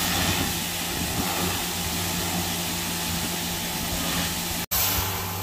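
Pressure washer spraying water onto a car's windshield and hood: a steady hiss of spray over the pump motor's hum. It breaks off abruptly about 4.7 s in, then resumes.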